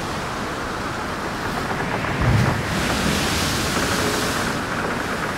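Waves breaking on a pebble beach, a steady rush of surf, with wind buffeting the microphone and a stronger gust about two seconds in.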